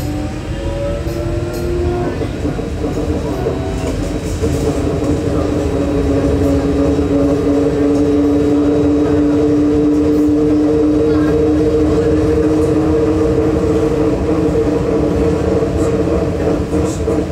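Trolleybus electric traction drive whining as the bus accelerates: the whine rises in pitch over the first couple of seconds, then holds a steady pitch as it cruises. Low road rumble underneath, heard from inside the cabin.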